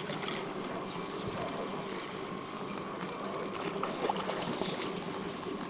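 Daiwa Ballistic FW LT2000SS-XH spinning reel's mechanism running in spells under the load of a hooked brook trout being fought.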